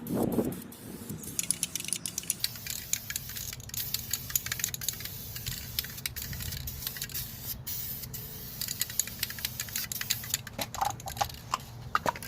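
Aerosol spray-paint can in use on a wheel: a brief low knock at the start, then a long run of quick rattling clicks over a faint spray hiss.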